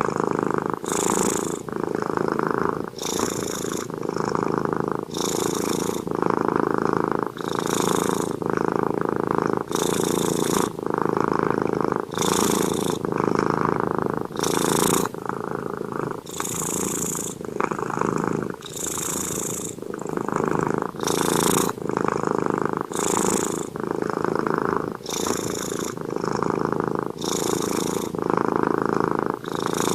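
Pet cat snoring in its sleep: a steady rumble with a hissy breath about every two seconds.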